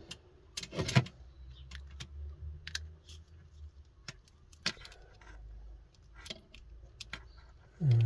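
Blue plastic-insulated crimp spade connectors and their wires clicking and rattling as they are pushed onto the blade terminals on the back of a 12 V socket panel, with scattered sharp clicks, the loudest about a second in and near five seconds. A brief voice sound comes at the very end.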